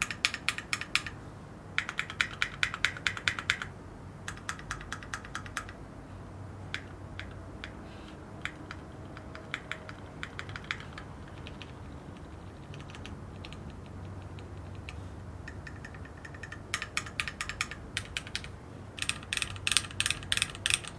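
Typing on a Keychron Q1 aluminium mechanical keyboard: fast runs of keystrokes, then a stretch of single, spaced presses in the middle, then fast runs again near the end. The keys have a pingy ring, worst on the bottom row, a sign that the tissue-thin foam under the board does little to damp it.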